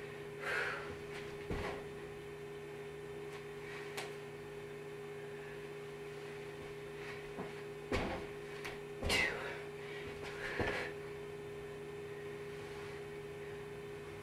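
Soft thumps of hands and bare feet landing on a carpeted floor during burpees, several times at uneven intervals, over a steady electrical hum.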